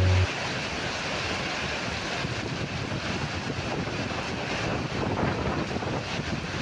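Steady rain falling, an even hiss without pitch.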